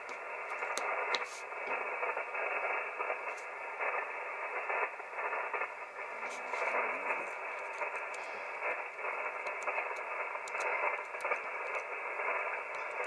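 Icom IC-7300 HF transceiver's speaker playing 40-metre sideband band noise: a steady hiss cut off sharply at the bottom and top, with crackles and faint, unintelligible traces of other signals, heard between a contest station's CQ calls. Light clicks from typing on a keyboard come through now and then.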